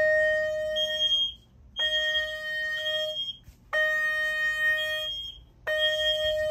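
Fire alarm evacuation signal from the speaker-strobes and horn: a steady electronic tone with higher tones layered over it, sounding about 1.6 s at a time and repeating four times with short gaps.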